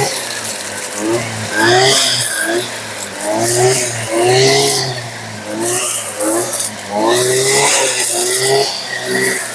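Two-stroke brushcutter engine revving up and falling back over and over, about once a second, as its chainsaw-chain trimmer head cuts through tall grass, with bursts of hiss from the chain slashing the grass.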